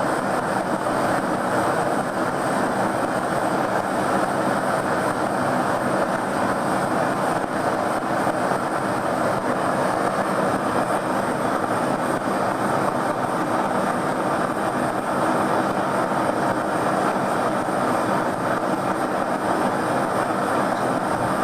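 Steady rushing noise of a gas torch flame held on an insulation board during a heat test, unbroken and even in level.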